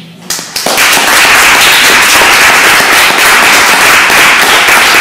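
Audience applauding, starting about half a second in and going on loud and steady, with individual sharp claps standing out.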